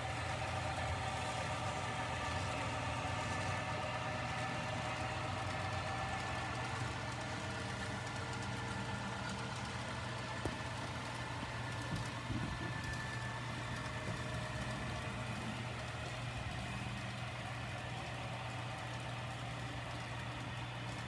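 Model diesel train running steadily along the layout track, a steady mechanical hum with whining tones that fade over the first several seconds as the locomotives pass.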